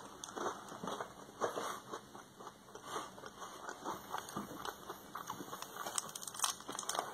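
Crunchy chewing of a strawberry KitKat wafer bar, in many small irregular crackles, with the wrapper rustling as it is handled.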